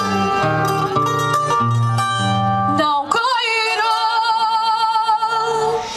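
Portuguese guitar and viola de fado playing a plucked fado introduction, with quick picked melody notes over bass notes. About three seconds in, a woman's voice enters singing a long held note with strong vibrato, the guitars quieter beneath her.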